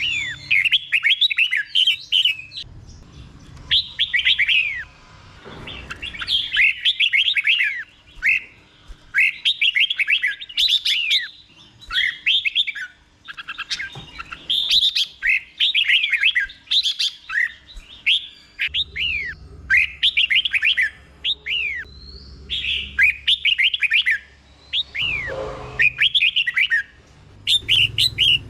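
Red-whiskered bulbul singing: phrase after phrase of quick, slurred whistled notes, with short pauses between the phrases.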